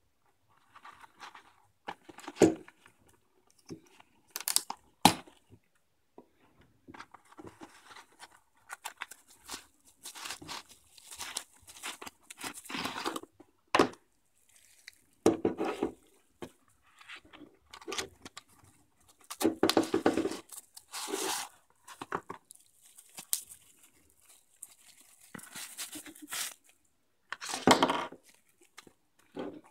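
Paper wrapping being crinkled and torn off by hand in irregular rustling spells, with a few sharp knocks as the aluminium flashlights are set down on the table.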